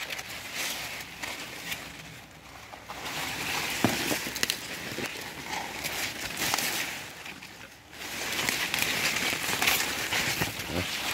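Maize leaves rustling and scraping against the phone as it is pushed in among the plants, with scattered small crackles and knocks. The rustling eases off about two seconds in and again just before eight seconds, then picks up.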